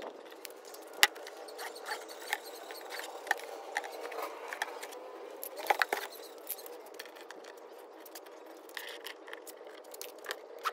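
A cardboard box being handled and marked: scattered sharp clicks, taps and light scraping of a pen and a tape measure on cardboard. The loudest click comes about a second in, and a cluster of knocks comes just before six seconds.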